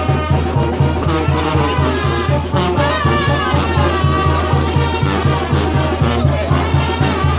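Brass-band dance music with a steady, even beat, about three beats a second.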